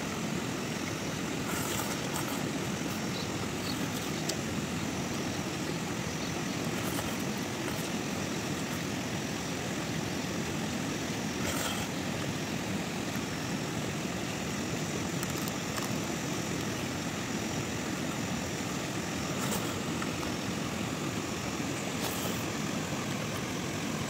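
Steady, even background noise with a few faint short clicks scattered through it.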